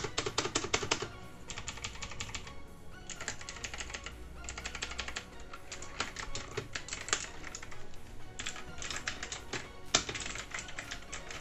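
Fast typing on an Ant Esports mechanical gaming keyboard with clicky blue switches: rapid key clicks in bursts of about a second, with short pauses between.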